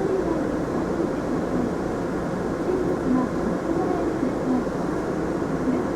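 Mitsubishi Fuso Aerostar city bus heard from inside the passenger cabin: a steady drone of engine and running noise.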